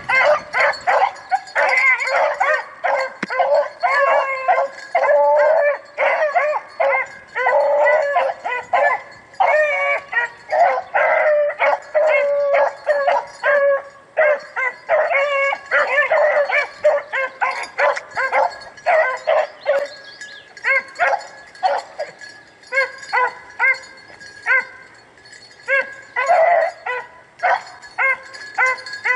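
A pack of rabbit hounds baying and yelping in overlapping cries as they run a rabbit. The chorus thins to scattered single barks about two-thirds of the way through, with one more brief burst near the end.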